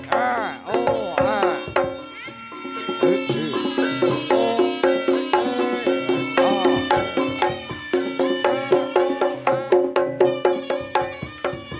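Live Javanese jaranan gamelan music: quick hand-drum strokes, many sliding in pitch, over held bronze gong tones with a steady beat.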